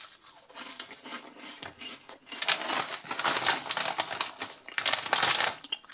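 Crunchy corn-and-potato snack sticks being bitten and chewed close to the microphone, with sharp crackly crunches. About two seconds in, the foil-lined snack bag starts crinkling loudly as it is handled.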